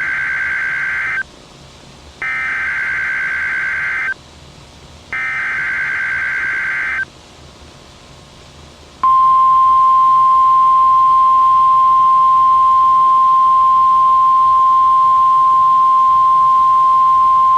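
Emergency Alert System SAME header: three bursts of buzzy digital data tones, each about two seconds long and about a second apart. About nine seconds in, a long, loud, steady single-pitched tone begins: the NOAA Weather Radio 1050 Hz warning alarm tone. Together they mark the start of a broadcast weather alert, here a severe thunderstorm watch.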